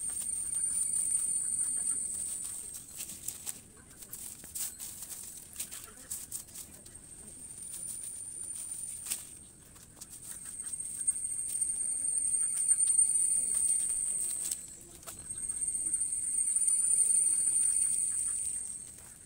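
A high-pitched insect drone that swells and fades in stretches of a few seconds, with crackles and clicks of dry sticks and palm-frond strips being gathered and handled.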